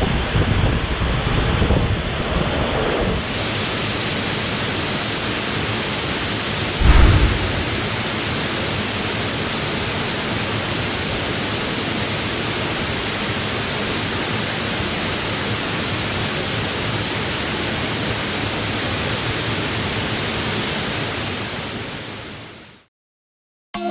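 Steady rushing of a waterfall, an even full-range hiss of falling water, with a single low thump about seven seconds in. It fades out near the end.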